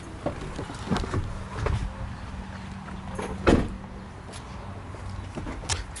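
Ford pickup truck door being opened with a few clicks and knocks, then shut with a solid thud about three and a half seconds in.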